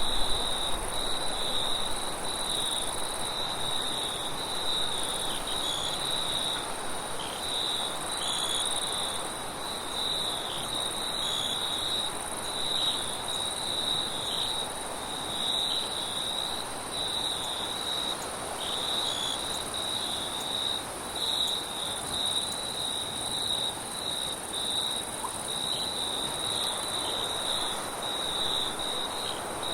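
Crickets trilling continuously in a steady, pulsing high chorus, with a fainter, even higher insect hiss above it. Wind rushes steadily underneath.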